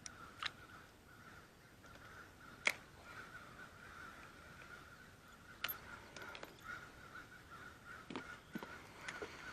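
A flock of agitated crows cawing continuously, faint and distant. A few sharp knocks sound over it, the loudest about three seconds in.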